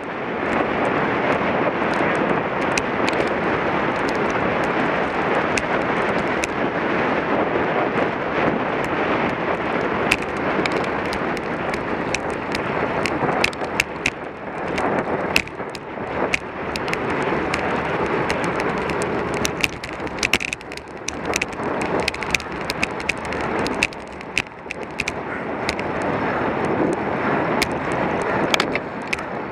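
Wind rushing over the microphone of a camera mounted on a racing bicycle at speed, rising and falling, with frequent sharp clicks and knocks from the bike and mount over the road.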